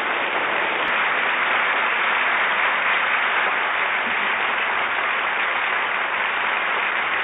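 Large crowd applauding, steady and unbroken.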